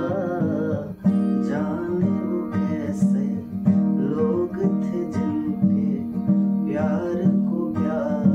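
Acoustic guitar strummed in a steady rhythm, with a brief break about a second in, and a man's voice singing along in places.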